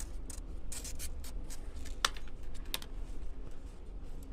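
Light, irregular clicking and scratching as mealworms are tapped and scraped off a container into the bat's box, with a couple of sharper clicks about two seconds in.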